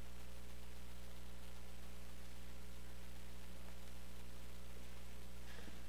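Steady electrical mains hum on the church's sound feed, a low buzz with its overtones, over faint room tone.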